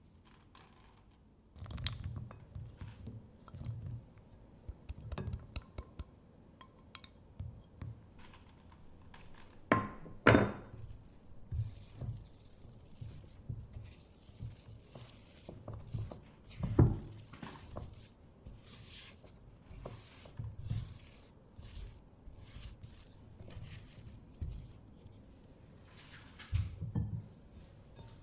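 A spatula knocking and scraping against a glass mixing bowl as blueberries are folded into crumbly scone dough. There are irregular soft thumps, with a few louder sharp clinks scattered through.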